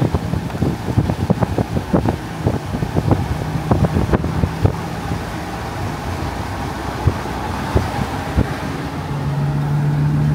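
A camper van's engine and road noise heard from inside the cab while driving, with many irregular clicks and knocks in the first half. The engine hum grows stronger about nine seconds in.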